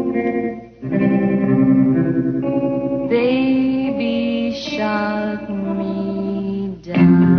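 Background music: a guitar with chorus and echo effects playing held notes, dropping out briefly about a second in and again near the end.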